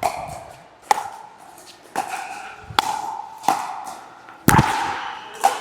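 A pickleball rally: paddles striking the plastic ball with sharp pops about once a second, seven in all. The loudest hit comes about four and a half seconds in.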